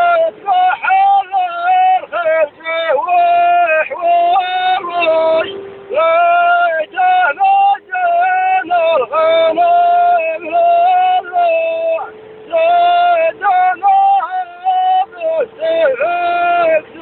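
Singing: a high voice in short held phrases with quick breaks between them, over a steady faint hum.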